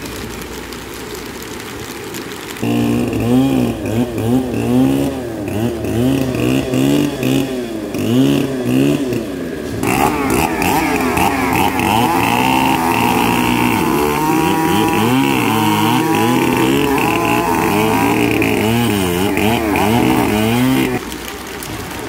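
Steady hiss of rain, then from about three seconds in a small petrol engine revving up and down over and over, louder and fuller about halfway through, stopping shortly before the end.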